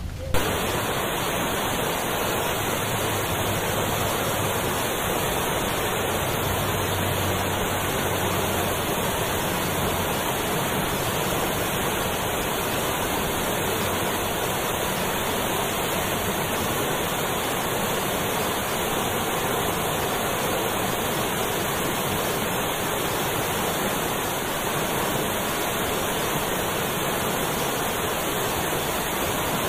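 A steady, even rushing noise like falling water, starting abruptly a moment in and holding unchanged throughout.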